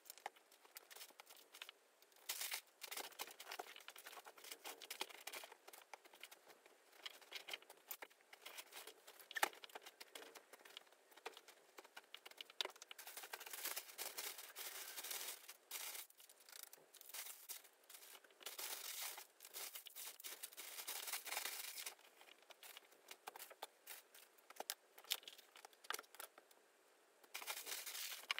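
Plastic crinkling and rustling with many small clicks, as stored yarn and knitting projects are handled and sorted.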